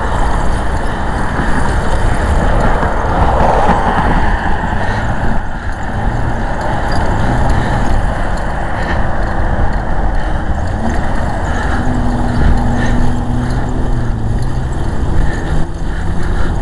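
Steady, loud running noise of a moving road vehicle, engine and road noise together, with no sharp events.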